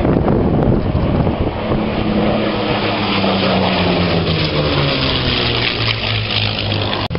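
Piston engines of two Second World War propeller fighters, one a Supermarine Spitfire, flying past overhead. The engine note falls in pitch from about three seconds in as they go by, and it cuts off suddenly near the end.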